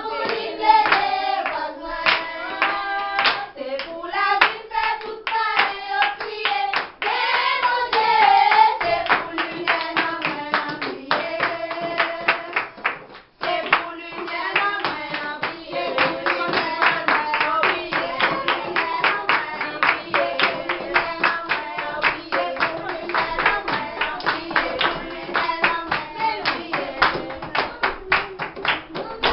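A group of children singing together while clapping along in a steady beat, with a very short break in the sound about 13 seconds in.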